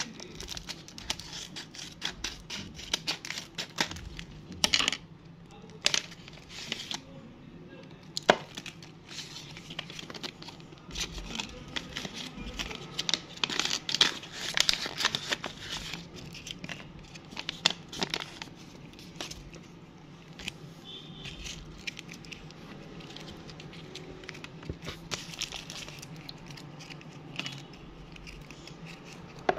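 Handmade paper blind bag being crinkled and torn open by hand, with dense crackling and sharp paper clicks, then the paper wrappers inside rustling as they are pulled out.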